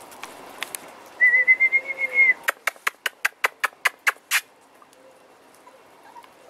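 A high, slightly warbling whistle lasting about a second, then a quick run of about ten sharp clicks, roughly five a second.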